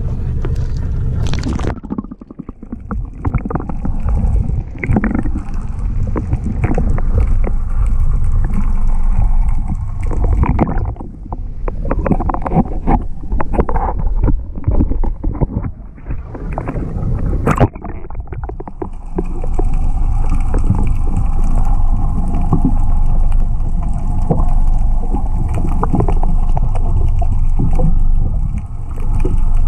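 Sea water sloshing and gurgling around a GoPro camera as it is dipped in and out of the water, with a steady low rumble. There is a run of sharp splashes and knocks in the middle.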